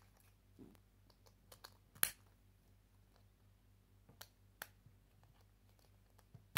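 Plastic Lego wheels being snapped onto a car chassis: a few sharp plastic clicks, the loudest about two seconds in, with fainter clicks of the pieces being handled.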